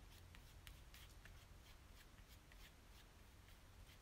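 Faint scraping and light ticks of a metal palette knife stirring acrylic paint on a paper palette, over a low steady hum.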